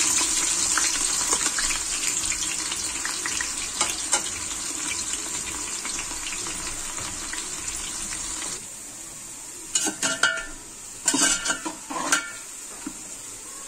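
Chopped onions frying in hot oil in a pressure cooker: a steady sizzle that slowly fades. After about eight and a half seconds it drops quieter, and a spoon scrapes and knocks against the pot several times as the onions are stirred.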